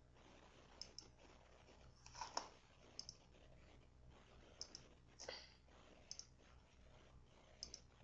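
Faint clicks, about a dozen, many in close pairs, as letters are entered one by one into a search box, over a faint steady hum.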